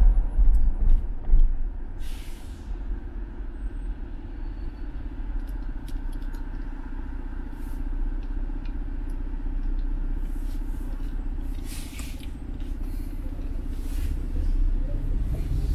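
Steady low rumble of a car's engine and tyres heard from inside the cabin while driving slowly, with a couple of low thumps in the first second or so and several short hisses.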